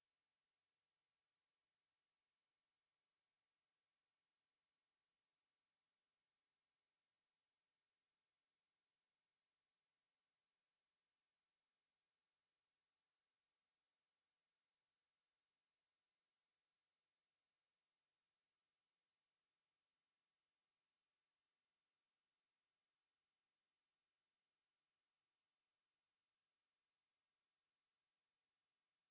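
A steady, unbroken pure sine-wave test tone at 9328 Hz, a single high-pitched whistle-like pitch held at a constant level.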